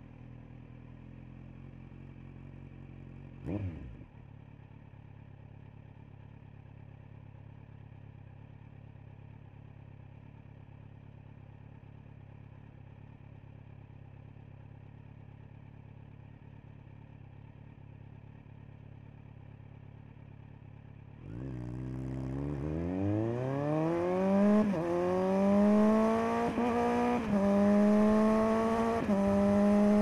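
Kawasaki Z900's inline-four engine through a LeoVince LV10 Carbon slip-on exhaust, idling steadily with one quick throttle blip about three and a half seconds in. About twenty seconds in it pulls away, the exhaust note rising in pitch and getting much louder as it accelerates, with short dips in pitch as it changes up through the gears.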